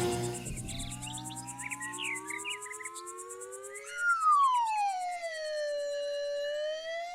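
Cartoon siren wailing: a faint tone rising over the first few seconds, then about four seconds in a louder wail that sweeps down and climbs back up, over a fast high ticking.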